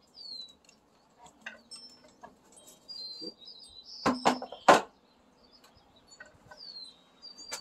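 Small birds chirping, with a few high falling whistles. About four seconds in come three sharp knocks in quick succession, with lighter taps before, from a hand tool working bolts set in a wooden 4x4 beam.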